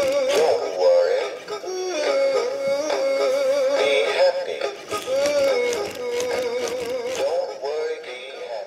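Big Mouth Billy Bass animatronic singing fish toy playing its song: a sung melody over a backing tune, fading near the end.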